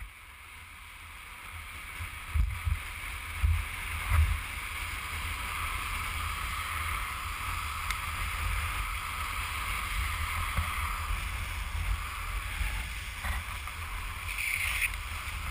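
Longboard wheels rolling fast on asphalt, with a steady road rumble and wind buffeting the microphone, growing louder over the first few seconds. A few low thumps come a few seconds in.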